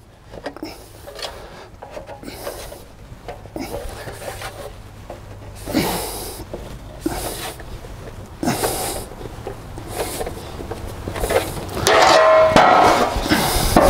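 An English wheel rolling a sheet-metal car wing panel back and forth as it is shaped: a run of irregular rubbing swishes that grow louder near the end, with a short ringing note from the metal.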